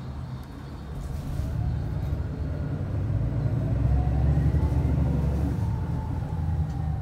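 City bus heard from inside the cabin as it accelerates: the engine and drivetrain rumble builds up, and a drivetrain whine rises in pitch and then eases off.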